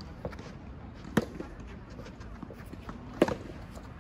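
Soft tennis ball being hit back and forth in a rally: two loud, sharp racket strikes about two seconds apart, with fainter hits and bounces between.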